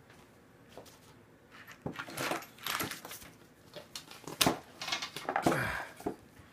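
A wooden 2x4 being set down on a plywood workbench and the aluminium engine cases shifted and set onto it: a string of knocks and scrapes, the sharpest clunk about four and a half seconds in, and a short squeak whose pitch falls near the end.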